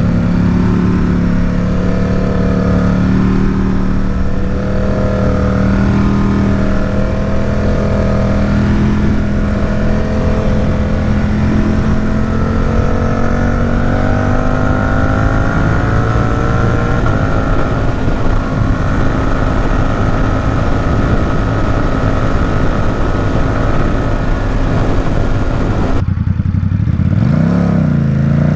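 Ducati SuperSport 950 S's V-twin engine running under steady load, its note slowly rising as the bike gathers speed. Near the end the throttle shuts, and the note drops and then climbs again.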